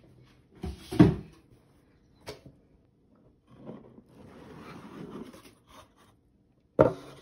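Thumps and knocks of a rigid cardboard shoe box being handled and its lid taken off. The loudest thump comes about a second in, and a sharp knock comes near the end, with a soft rustle between.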